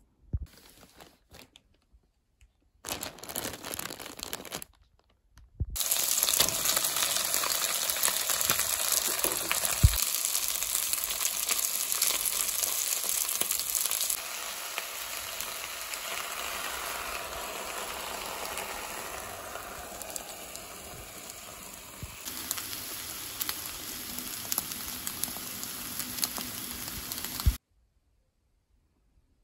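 Fried rice sizzling in a hot pan: a dense crackling hiss that starts about six seconds in, turns quieter partway through and cuts off suddenly near the end. Before it come a few short bursts of rustling.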